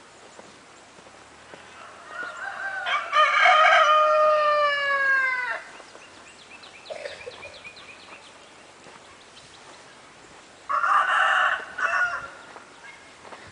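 Rooster crowing: one long crow starting about two seconds in, its pitch falling away at the end, then a shorter, harsher call near the end.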